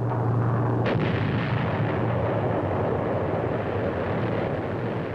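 A steady low aircraft-engine drone is cut off about a second in by a sudden explosion. The explosion is followed by a long, dense rumble that slowly dies down. It is the newsreel's sound of the atomic bomb going off.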